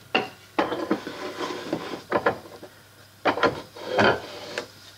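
A block of alder being seated against wooden bench dogs and clamped in a wooden workbench vise: a handful of irregular sharp wooden knocks with rubbing and scraping between them.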